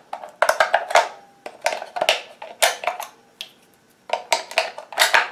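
Duracell AA batteries being pried out one at a time from a plastic battery compartment, clicking free of the spring contacts and clinking against the plastic and each other: about four short bursts of clicks and clatter.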